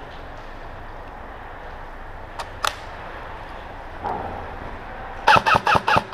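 Airsoft gun firing a quick string of about six shots near the end, around six or seven a second. Two sharp clicks come earlier, about halfway through.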